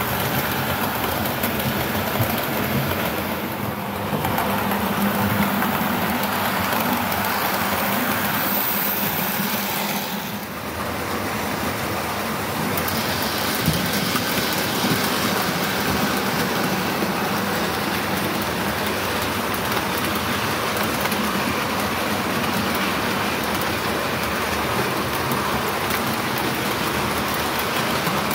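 Model trains running on a layout: a steady rushing rumble of small wheels on the track with a low motor hum, dipping briefly twice, about four and ten seconds in.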